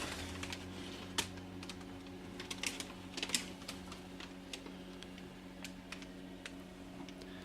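Light, irregular clicks and taps of a Spanish Mauser rifle being handled and turned over, over a faint steady hum.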